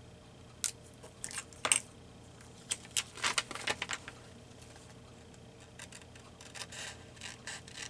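Scattered small clicks, taps and short rustles of paper cut-outs and craft tools being handled on a work table, busiest in the first few seconds and sparser after.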